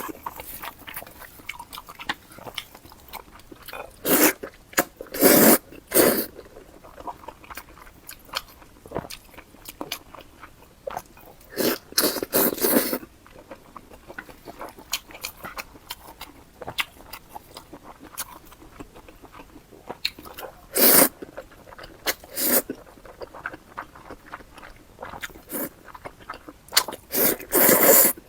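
Close-miked eating sounds: a person chewing, with a handful of loud, short bites.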